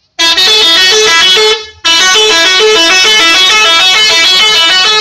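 Bus telolet horn, a multi-tone musical horn, playing its quick warbling tune of rapidly alternating notes. It is very loud and comes in two long blasts with a short break after about a second and a half.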